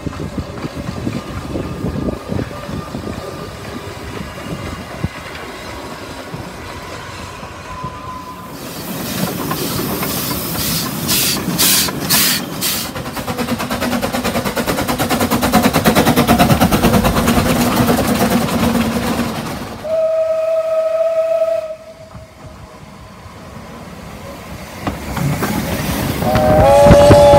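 Narrow-gauge steam locomotives running, their exhaust chuffing in quick, even beats that grow loudest in the middle. A steam whistle blows once for a little under two seconds about twenty seconds in, and a two-note whistle begins right at the end.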